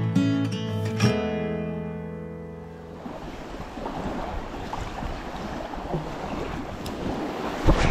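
Acoustic guitar music; a strummed chord rings out and fades away over the first three seconds. Then small lake waves lap on a sandy shore, with wind on the microphone and a low thump near the end.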